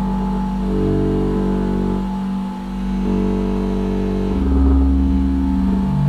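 Waldorf Microwave XT synthesizer playing low, held notes that change to new pitches every second or so, with a deeper bass note coming in about two-thirds of the way through.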